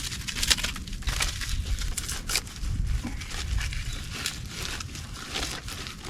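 Dry bark being crushed and rubbed between the hands to break it into fine tinder fibers: irregular crackling and crinkling.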